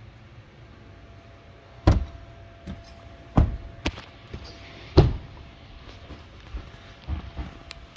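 Fibreglass hatch and storage lids on a Moomba wake boat being shut and handled: three loud thumps about two, three and a half and five seconds in, with smaller knocks between and after them.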